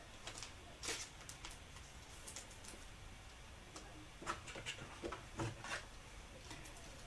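Faint rustling and scattered short clicks of trading cards being handled and slid through the hands, louder about a second in and again around the middle.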